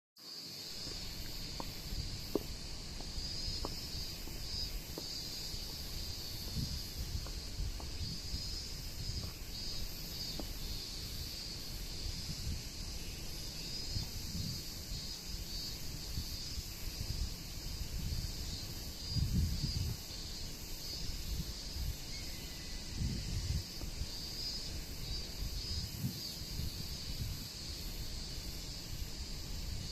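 Gusting wind buffeting the microphone in low, uneven rumbles, over a steady high-pitched drone of insects.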